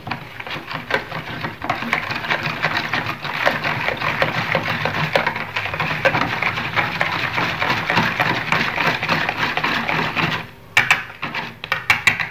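Wire whisk beating tapioca starch and warm water in a plastic bowl: a fast, continuous clatter of the wires against the bowl with the slosh of the thin batter. The whisking stops about ten seconds in, followed by a few separate taps.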